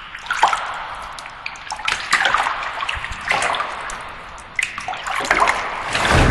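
Water splashing and sloshing, rising and falling in a series of surges about once every one to one and a half seconds.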